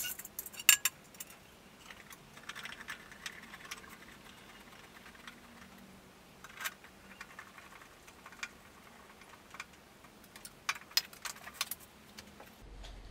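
Scattered clicks and metallic clinks of hand tools and lawnmower parts being handled during reassembly. The sharpest clicks come about a second in and again in a cluster near the end.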